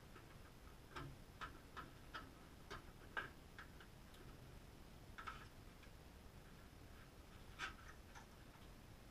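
Near silence broken by faint, irregular light clicks and taps, a cluster in the first few seconds and a few more later, as a plastic airbox and its panel air filter are handled.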